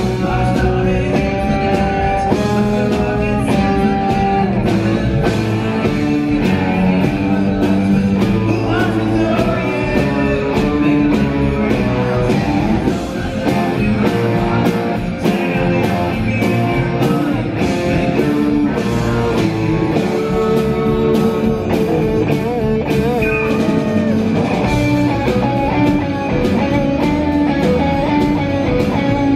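Live rock band playing a song: electric guitar and keyboard over a steady beat, with singing.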